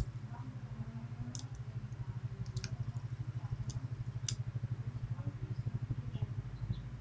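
Small metallic clicks from lock picks working the pins of a Medeco Biaxial lock, about five scattered clicks in the first four and a half seconds, over a steady low hum.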